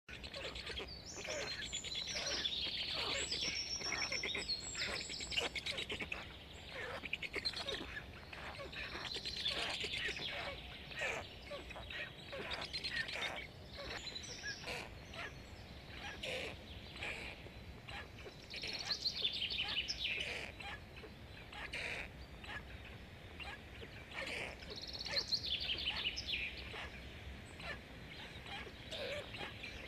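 Birds chirping and calling on and off in repeated bouts, with scattered short clicks.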